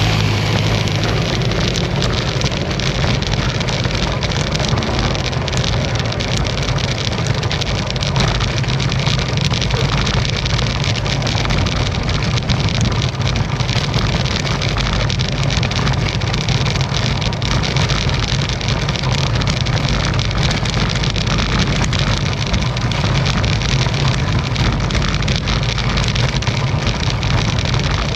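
Specialized Tarmac SL7 road bike on Roval Terra CLX wheels riding at speed: a steady rumble of tyres on the road with constant small rattles and knocks.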